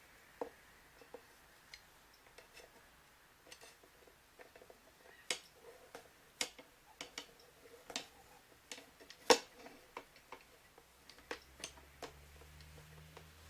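Irregular light clicks and taps of digital door-lock parts being handled as the wiring connectors and mounting plate are fitted, with the sharpest click about nine seconds in.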